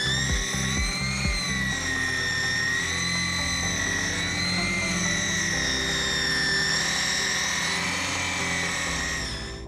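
A power tool's high, steady whine, wavering a little in pitch, cutting out sharply near the end, over background music with a beat and a stepped bass line.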